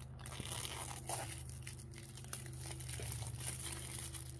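Clear plastic shrink wrap being peeled off a phone box and crinkled in the hands, a steady run of small crackles.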